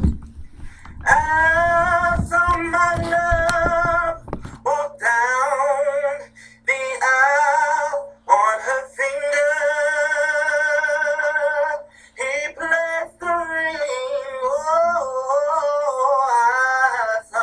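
A high-pitched singing voice holding long notes with vibrato, in phrases of a few seconds broken by short pauses. A low rumble sits under the first few seconds.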